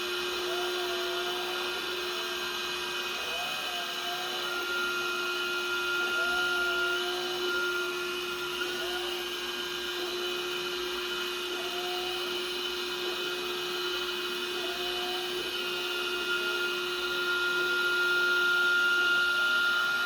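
Xiaomi Miwhole window-cleaning robot running on glass: its suction motor gives a steady whine, with a wavering higher tone coming and going about every second or so.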